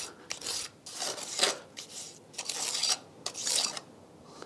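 Steel pointing trowel scraping bastard mortar off a metal hawk and pressing it into a brick joint: a series of short scrapes, about two a second, quieter near the end.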